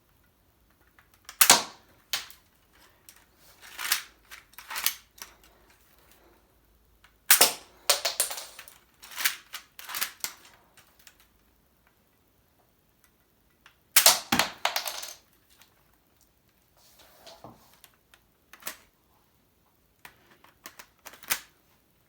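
Lego plastic parts of a brick-built rifle snapping and clattering as it is handled and worked, a dozen or so sharp clicks with three louder snaps, each followed by a short rattle.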